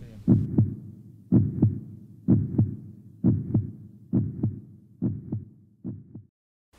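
Heartbeat sound effect: paired low thumps (lub-dub) about once a second, speeding up slightly and fading, then cutting off about half a second before the end.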